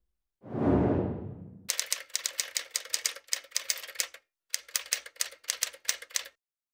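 A whoosh sound effect swells and fades about half a second in. Then come two runs of rapid, uneven typewriter key clicks, a sound effect, with a short pause between the runs.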